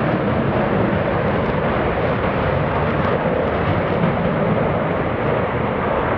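Jet noise from a Blue Angels F/A-18 Hornet's twin General Electric F404 turbofan engines running at high power during a low display pass. The noise is loud and steady throughout.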